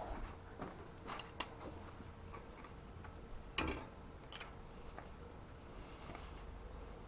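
A few sparse, light metallic clicks and taps as a hand tool is worked against the axle nut deep inside the ebike's rear hub, over a faint steady hum.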